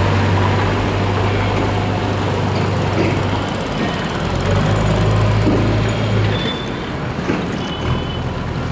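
Diesel engine of a JCB backhoe loader running with a steady low drone, which drops off about six and a half seconds in.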